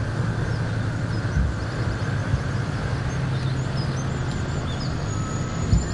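Steady low outdoor rumble with a hum, with a few faint bird chirps high above it.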